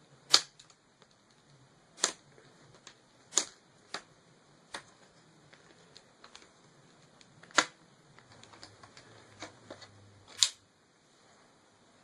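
Plastic clips of a laptop's screen bezel snapping loose one by one as it is pried off by hand: sharp separate clicks at uneven intervals, about five loud ones with fainter ticks between.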